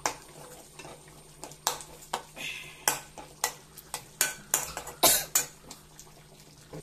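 A metal spoon stirring rambutan pickle in a metal pan, clinking and scraping against the pan at irregular intervals, loudest about five seconds in. A faint steady hum sits underneath.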